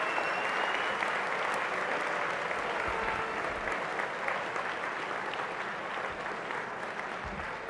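A large seated audience applauding, a dense steady clatter of many hands clapping that slowly fades toward the end.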